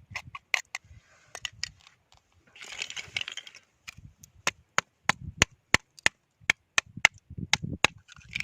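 Oyster shells clicking and cracking as they are handled and pried open with a knife: irregular hard clicks, a short scrape about three seconds in, then a run of crisp clacks about two a second, some with a dull knock.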